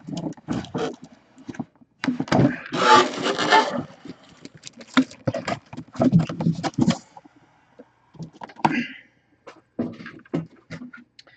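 Cardboard box and plastic packaging handled as a plastic-wrapped full-size football helmet is pulled out of its box: irregular knocks, scraping and rustling, with a longer, louder rustling rush about three seconds in.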